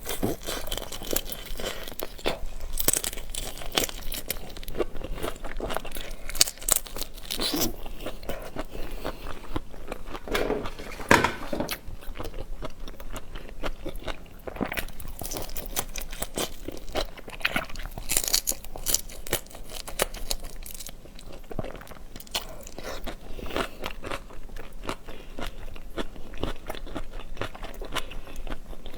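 Close-miked eating of seafood: steady crunching and chewing, a dense run of crackly clicks with louder bites every so often.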